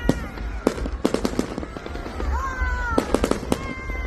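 Fireworks going off in rapid clusters of sharp cracks and pops over a low rumble. A high held tone runs alongside and bends down about halfway through.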